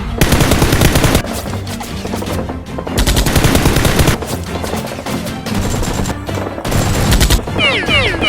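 Three bursts of rapid automatic gunfire sound effect, each about a second long, over background music. Near the end comes a quick run of falling whistles.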